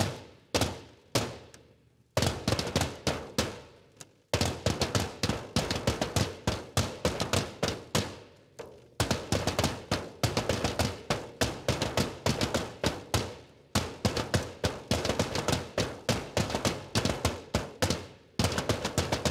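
Three red pioneer side drums played with wooden sticks, beating out a pioneer drummers' march: a few separate strokes at first, then fast, continuous rhythmic patterns broken by brief pauses.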